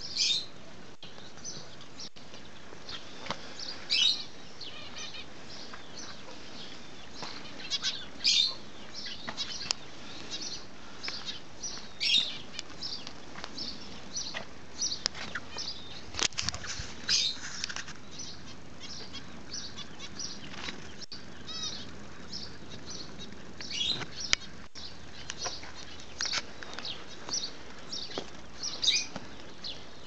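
Birds in an aviary making short, high chirps and flutters at irregular intervals, every second or few seconds, over a faint steady background hiss.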